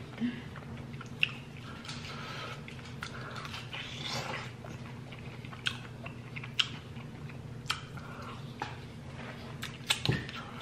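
Close-miked chewing of a crisp-fried birria taco, with sharp wet mouth clicks every second or so and a louder pair near the end. A steady low hum runs underneath.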